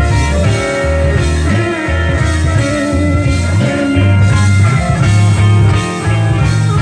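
Slow blues band music between vocal lines: electric guitar playing a fill over bass and drums, with a long sustained high guitar note about three seconds in.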